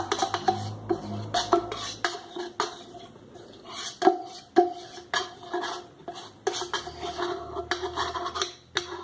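Metal spoon scraping and knocking inside an opened tin of sweetened condensed milk, as the last of the milk is worked out. Many irregular clinks and scrapes, the can ringing briefly after the sharper knocks.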